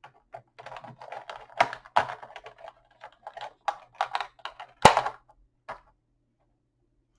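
Quick irregular clicks and crinkles of a plastic blister tray being handled as action-figure accessories are pried out of it, with one sharp snap just before five seconds in. The clicking stops about a second and a half before the end.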